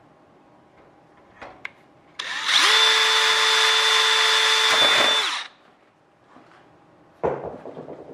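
Hand-held power drill spinning up, boring a hole through a clamped aluminium spacer and spar for about three seconds, then winding down. A few knocks and clatter follow near the end.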